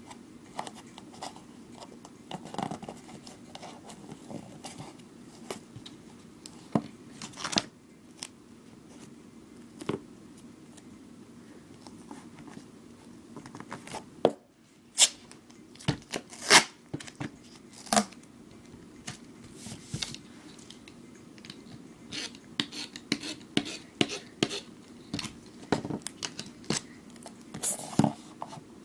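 Duct tape crafting at close range: strips of duct tape cut, peeled and pressed onto a cardboard tape-roll core, giving irregular short snips, rips and taps with pauses between them.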